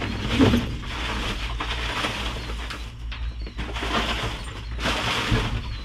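Trash being rummaged through by hand: plastic packaging and cardboard boxes rustling and crackling in irregular bursts, over a steady low hum.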